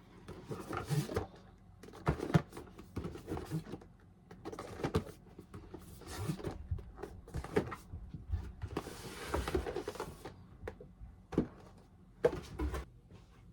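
A large cardboard shipping box being moved and opened by hand: irregular rustling, scraping and knocks of cardboard and packing, with a longer scraping rustle about nine seconds in.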